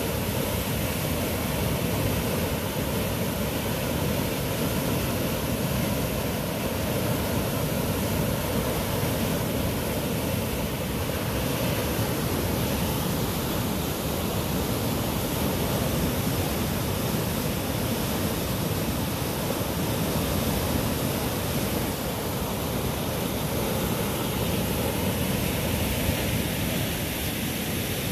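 Muddy floodwater of a swollen river rushing and churning around tree trunks and brush, a steady, unbroken rushing noise.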